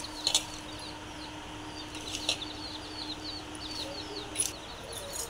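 Small birds chirping rapidly and continuously in the background, short falling chirps several a second. Three brief rustling scrapes come from hands working a dry, coarse panjiri mix in a metal bowl, near the start, in the middle and near the end.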